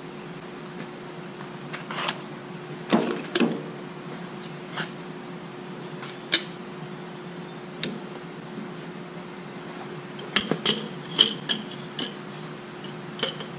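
Screwdriver clicking and tapping against the Delco distributor cap and its latches as the cap is unfastened: scattered light clicks, several in quick succession near the end.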